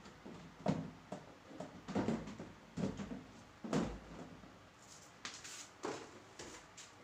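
Plastic wardrobe doors being handled and fitted onto a plastic cabinet tier: a series of irregular knocks and clacks of plastic on plastic.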